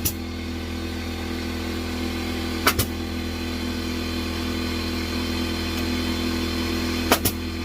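A steady machine hum runs throughout, with three sharp double clicks a few seconds apart: near the start, a little under three seconds in, and near the end.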